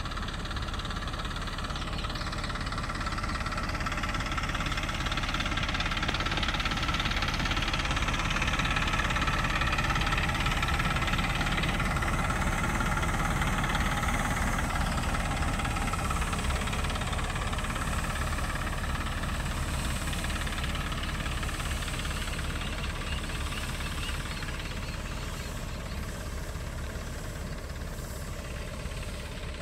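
Tractor engine running steadily, driving an HTP spray pump. It grows a little louder for several seconds, then eases off toward the end.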